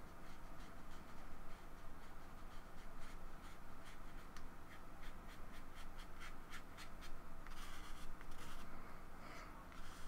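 Thin paintbrush dabbing and stroking paint onto paper, a run of short, soft scratchy ticks that is thickest from about three to eight seconds in. A low steady hum runs underneath.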